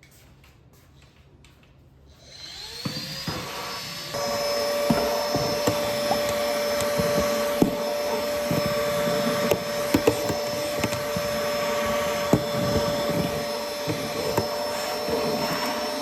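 LG CordZero A9 Air cordless stick vacuum switching on about two seconds in, its motor whine rising as it spins up. It gets louder and higher about four seconds in, then runs steadily with a high whine and scattered clicks and knocks.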